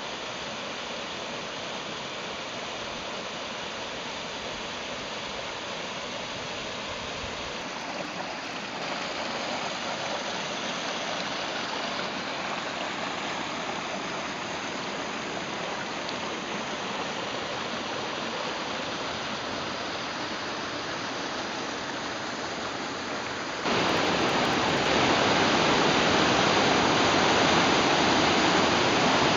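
Steady rush and splash of a small waterfall dropping into a pool in a narrow rock creek. About four-fifths of the way in, it gives way abruptly to the much louder, fuller roar of Colorado River whitewater rapids.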